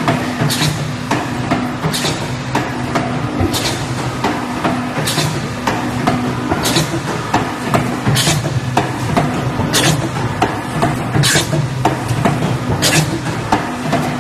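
Chicken nugget production line machinery running: a steady motor hum with clatter, and a sharp clack-and-hiss stroke repeating about every one and a half seconds as the line cycles.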